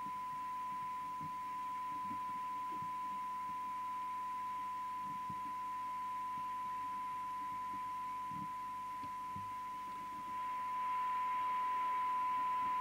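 Steady 1 kHz test tone from the signal generator, received by the Audioline PT340 CB radio and heard through its speaker during receive alignment on a weak signal, over receiver hiss that grows louder about ten seconds in.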